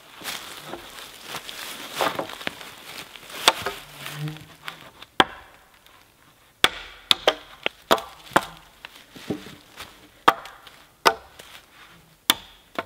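Vintage Norlund hatchet chopping the branch stubs off a wooden pole: a dozen or so sharp, irregularly spaced blows of the blade into wood, with the pole and dry leaves rustling between them.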